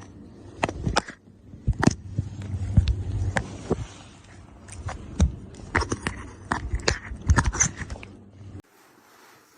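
A string of irregular knocks, clicks and scrapes, which cuts off abruptly about eight and a half seconds in.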